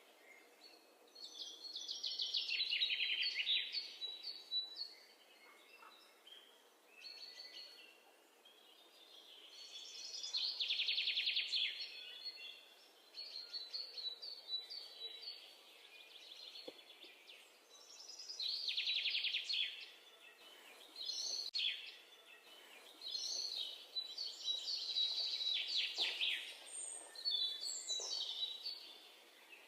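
Birds calling: high trilled phrases of one to three seconds, repeated every few seconds over a faint steady hiss.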